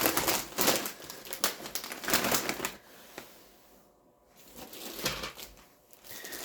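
Plastic packaging crinkling and rustling as it is handled: a large bag of tortilla chips being moved about, in dense crackly bursts at first, a brief lull, then more rustling near the end.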